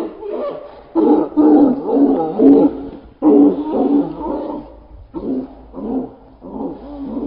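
Dogs fighting a wolf, growling and snarling in loud, rough bursts. The calls are loudest between about one and four seconds in, with short breaks, and are quieter after about five seconds.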